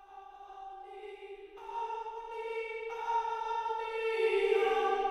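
Background music fading in: a song's intro of sustained, layered chords that builds steadily in loudness.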